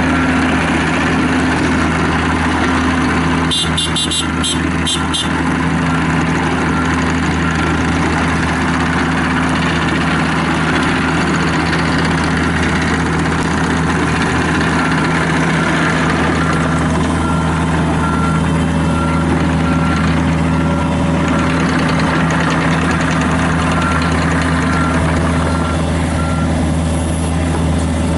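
Diesel engine of a John Deere 50G mini excavator running steadily. A quick run of sharp clicks comes about four seconds in, and a faint evenly pulsing tone sounds in the second half.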